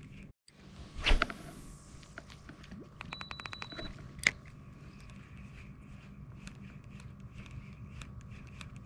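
Fishing cast and retrieve with a spinning reel: a swish about a second in, then scattered light clicks and ticks of the reel and line, with a quick run of clicks around the middle, over a low steady hum.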